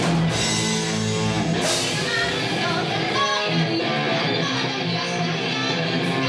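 Live rock band playing, led by a strummed electric guitar, with a singer's voice shouted through a handheld megaphone.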